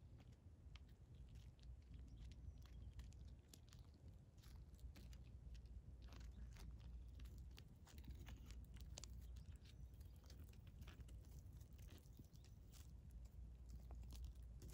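Faint, scattered crunches and clicks of a desert tortoise's clawed feet stepping on loose gravel, coming more often from about six seconds in, over a low steady rumble.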